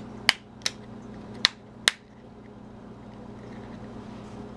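Line 24 snap fasteners on a leather belt loop being popped open: four sharp clicks within about two seconds, over a steady low hum.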